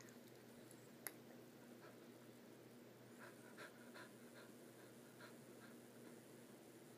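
Near silence over a low steady hum, with a golden retriever puppy panting faintly through the middle and a single click about a second in.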